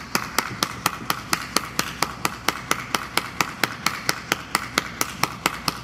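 One person clapping hands at a steady pace, about five claps a second, over a faint steady hiss.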